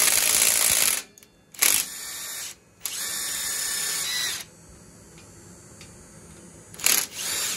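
Cordless drill with a socket spinning out small 10 mm bolts from a go-kart's axle bearing flange. It runs in several spells: a long one at the start, two shorter ones between about one and a half and four and a half seconds in, then brief bursts near the end.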